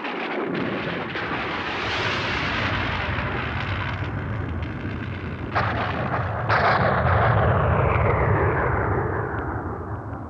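Thunder sound effect: a long rolling rumble, with a sharp crack about five and a half seconds in and a louder thunderclap about a second later, which rumbles on and dies away near the end.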